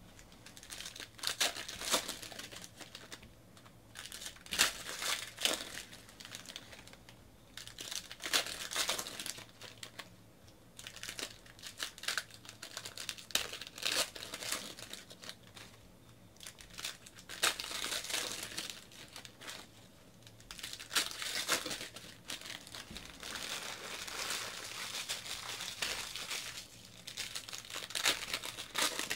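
Foil trading-card packs crinkling and tearing as they are ripped open by hand, in a string of irregular bursts.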